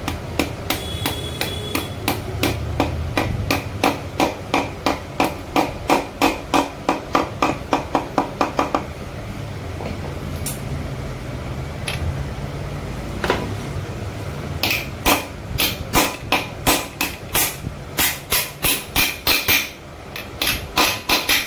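Hammer tapping a main roller bearing into its housing in a Royal Enfield Bullet crankcase, in quick even taps about four a second. The tapping stops about halfway for several seconds with only a few single taps, then resumes in a second run.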